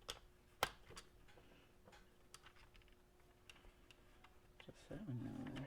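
Scattered light clicks and taps of small tools and RC car parts being handled while a wheel is taken off, the sharpest click about two-thirds of a second in, then a brief louder rubbing, scraping sound near the end.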